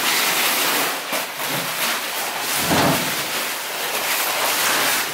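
Steady rustling and scraping of cardboard and junk being handled and dragged across the floor, with a few brief knocks.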